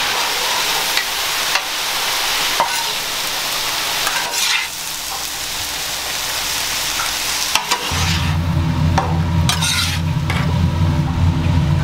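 A large pile of sliced onions sizzling on a flat-top griddle, with the scrape and clack of metal spatulas chopping and turning them. About eight seconds in, a steady low hum comes in underneath.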